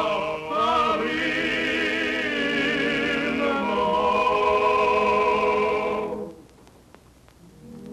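A cantor chanting a Yom Kippur eve prayer: a wavering, held melody over sustained accompanying tones, breaking off about six seconds in. Held tones come back in just before the end.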